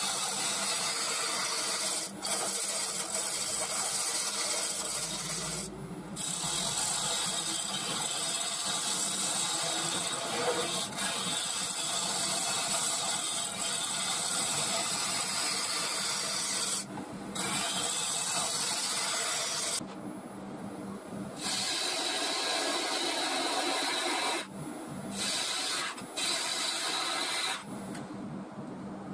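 A lathe tool cutting the outside of a spinning mulberry bowl blank on a wood lathe: a steady shearing hiss of wood being cut, broken by several short pauses where the tool comes off the wood. The lathe's motor hums underneath.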